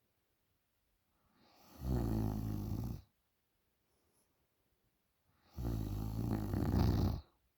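A sleeping young woman snoring, really loud: two long snores, each about a second and a half, with a quiet pause of a few seconds between them.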